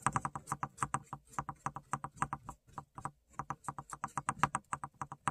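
Paintbrush dabbing paint onto a textured painted surface: quick light taps, about six or seven a second, with a short break midway.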